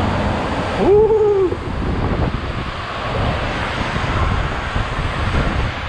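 Water rushing around an inner tube sliding down an enclosed water slide, a steady noisy rush. About a second in, a rider gives a short 'whoo' that rises and then falls.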